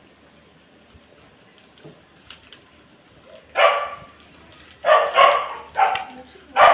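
A dog barking, about five short, sharp barks in the second half after a quieter start.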